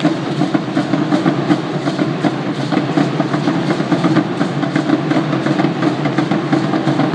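Aztec dance drumming: a fast, even drumbeat that goes on without a break.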